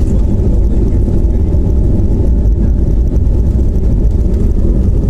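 Airliner cabin noise during takeoff: a loud, steady low rumble of the engines and the wheels on the runway.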